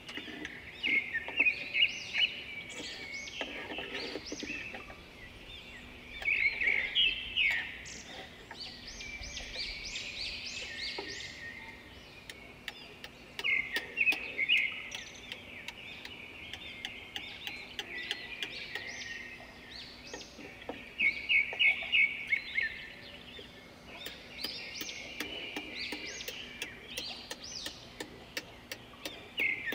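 Claw hammer driving nails into wooden planks and a window frame, in several bursts of quick, ringing strikes. Birds chirp faintly in between.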